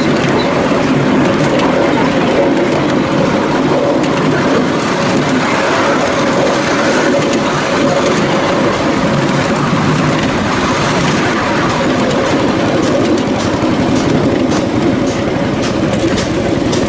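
Miniature railway train running along its track, heard from on board: a steady rumble of wheels on rail with a constant hum, and a quick series of clicks in the last few seconds.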